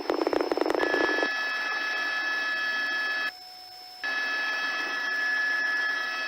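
Police radio channel keyed open without speech: a second of rapid buzzing pulses, then a steady hiss with a high whine. The hiss cuts out abruptly a little over three seconds in and keys back on under a second later.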